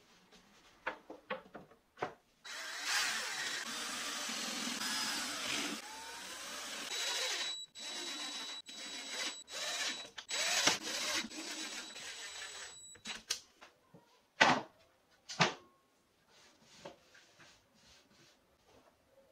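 A power drill runs into a pine strip on a plywood board: one long run of about five seconds, then several shorter bursts with a thin whine. Then two sharp knocks about a second apart.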